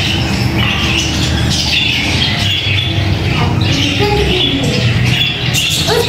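A flock of small caged parrots squawking and chattering in repeated harsh calls.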